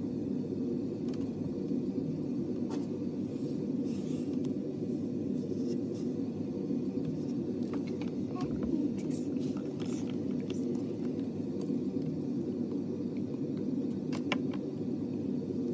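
Steady low rumbling hum at an even level throughout, with a few faint clicks and rustles on top.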